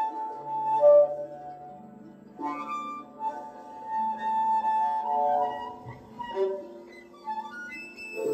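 Improvised acoustic music: long held notes from a bowed string instrument played upright, over a low sustained drone, with other ringing pitched tones layered in.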